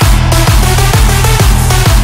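Electronic dance music: a driving electro-house track with a heavy kick drum on a steady beat, about two kicks a second, under a dense synth mix.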